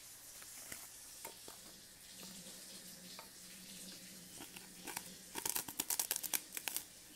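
Close-up crunching of a puffed rice cake being bitten: a quick run of sharp, crackling crunches in the second half, after a few soft clicks.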